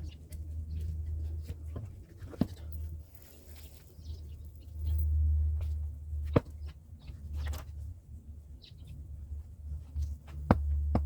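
Hand axe striking firewood: three sharp knocks about four seconds apart, over a low steady rumble, sped up to double speed.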